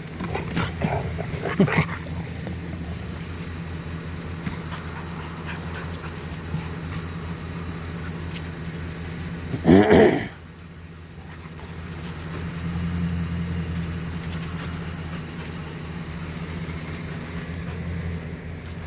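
A dog vocalizing while playing with a tire: a couple of short growls in the first two seconds and one loud bark about ten seconds in. Under it runs a steady low hum.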